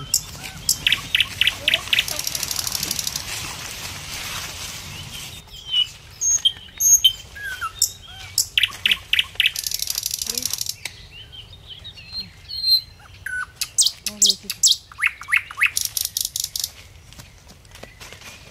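Birds chirping and calling in quick series of short, sharp notes. Twice a high, rapid buzzing trill runs for a couple of seconds.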